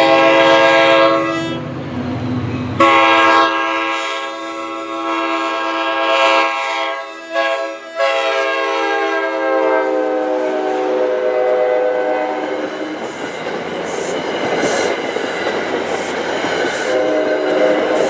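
NJ Transit train's multi-note horn sounding loud chord blasts: a short one at the start, then a long one from about 3 s to 10 s that dips slightly in pitch and fades as it goes by. The train then rumbles past with wheels clicking over rail joints, and the horn sounds briefly again near the end.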